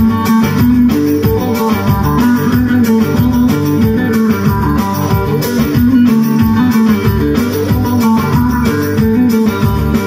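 Amplified bağlama (Turkish long-necked saz) playing a plucked instrumental passage through a PA, with no singing.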